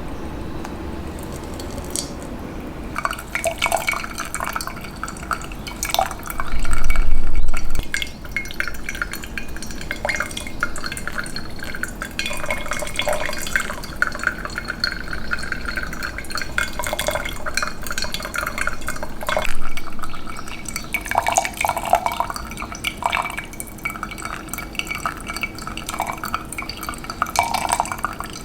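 Glassware clinking and liquid dripping and splashing, in many small, irregular clinks, with a louder rush about seven seconds in.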